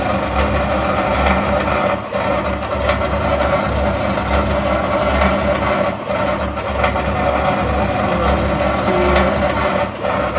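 GE top-load washer agitating with a loud, steady grinding that dips briefly about every four seconds. Its worn suspension shocks let the heavy, water-filled tub sag, so a wheel grinds against metal.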